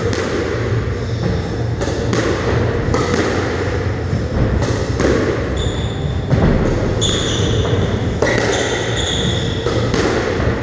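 Squash rally: the ball cracks off rackets, walls and floor roughly every half second to second, each hit echoing in the court. From about halfway through there are short squeaks of shoes on the wooden floor.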